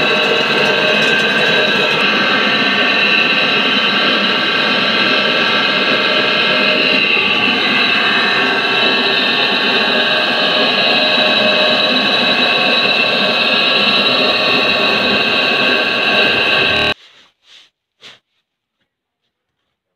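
Belt-driven rice milling machinery (paddy husker and rice refiner, electric-motor driven) running under power: a loud, steady mechanical noise with a high whine held over it. It cuts off suddenly near the end.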